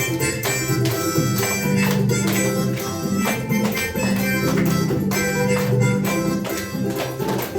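Instrumental music with a lively, regular beat: plucked strings and a tambourine-like percussion.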